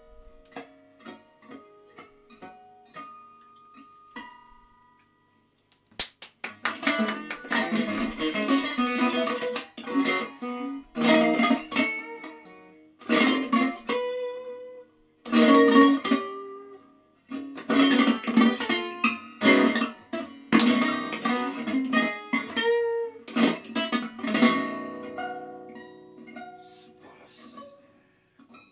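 Electric guitar played solo through an amp: a few sparse picked notes, a brief pause, then about six seconds in loud, dense strummed chords in phrases broken by short pauses.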